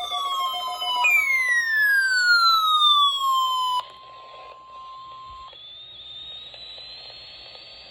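NOAA Weather Radio sounding its steady 1050 Hz warning alarm tone for a weekly test, starting about a second in and stopping a little past two-thirds of the way through. At first it is overlaid by a loud, falling siren-like tone that cuts off suddenly about halfway; after that only a faint hiss remains.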